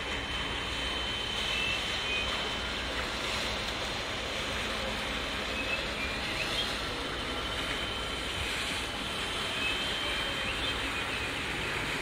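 Steady outdoor noise of wind and water, with a few faint, short, high tones.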